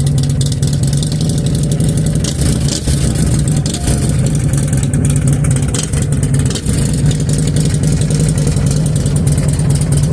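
Harley-Davidson Street Glide V-twin engine running steadily.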